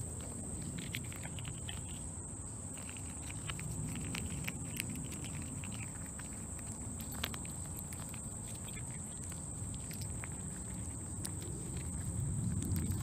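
Faint, scattered soft clicks of a chipmunk nibbling a peanut held in a hand, over a low steady background noise.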